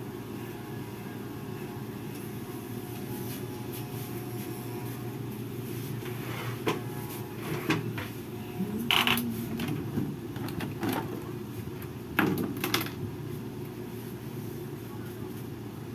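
Steady low mechanical hum, with a handful of short sharp clicks and scrapes from haircutting between about six and thirteen seconds in; the loudest come around nine and twelve seconds.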